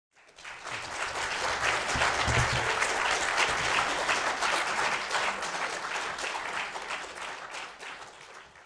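Audience applauding at the close of a lecture: many hands clapping, swelling within the first second, holding steady, then dying away near the end.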